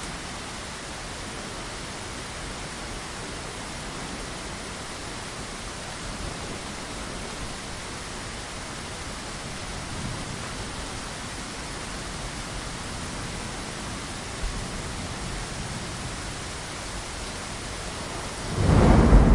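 Steady rain falling against a window pane, a constant even hiss. Near the end a loud, deep thunder rumble swells up over the rain.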